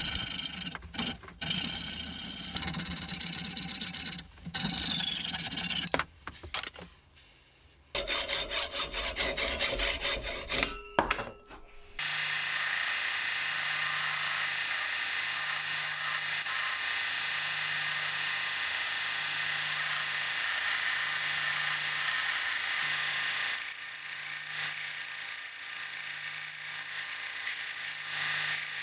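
A saw cutting into cast aluminium in short bursts, cut together in several short bits. About twelve seconds in, an electric belt sander starts a steady run with a low throb about once a second as an aluminium handle end is ground against the belt.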